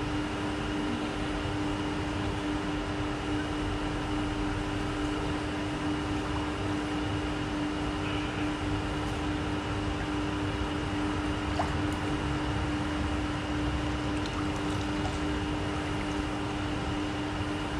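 Steady machine hum with a constant low drone and a fainter high whine, over an even wash of moving water: pumping equipment keeping water flowing through a test tank.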